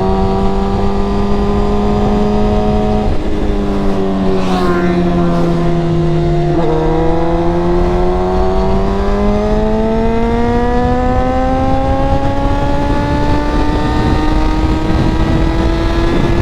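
Tuned Suzuki GSX-R1000R inline-four engine running under way: the note holds steady for about three seconds, drops for a few seconds, then from about six and a half seconds in climbs steadily in one long pull.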